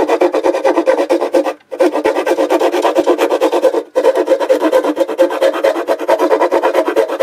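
A small round file rasping round the edge of a potentiometer hole in a semi-acoustic guitar's wooden top, in quick short strokes with two brief pauses. The hole is being widened and chamfered to take a new volume pot.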